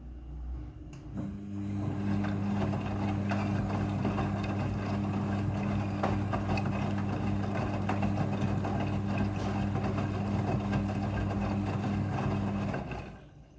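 Front-loading washing machine running during a rinse: a steady electric hum with water rushing and crackling over it. It starts about a second in and stops abruptly near the end.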